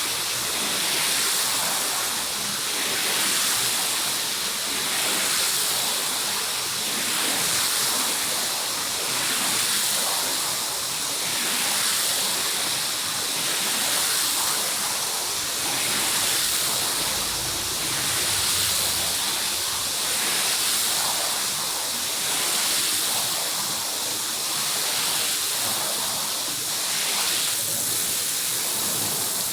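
Rushing, hissing water of carpet washing, swelling and easing in a regular rhythm about every two seconds, as in sweeping strokes over the wet pile.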